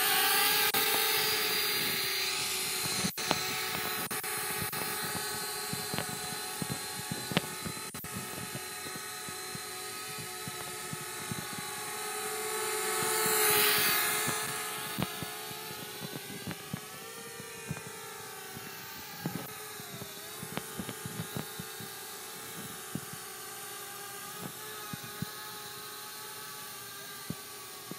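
Flitt foldable selfie quadcopter's motors and propellers whining as it hovers and flies. The whine swells loudest about halfway through as the drone comes close, then wavers up and down in pitch as it manoeuvres, with faint scattered clicks.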